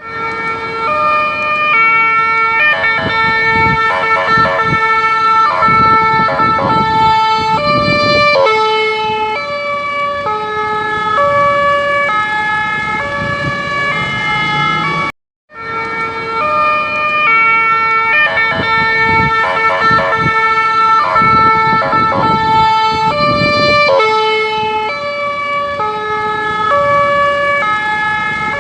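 Electronic ambulance siren sounding a series of steady tones that step from one pitch to another, with short stretches of rapid pulsing. The same sequence plays twice, broken by a brief silence about fifteen seconds in.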